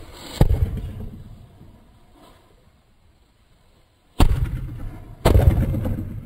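Small firecrackers exploding: three sharp bangs, about half a second in, at about four seconds and a second after that, each fading out over a second or so.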